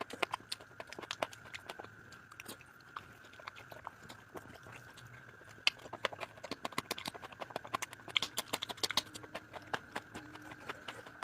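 Close-miked person chewing and smacking their mouth while eating, many quick irregular wet clicks, busiest in the second half. A faint steady high whine runs underneath.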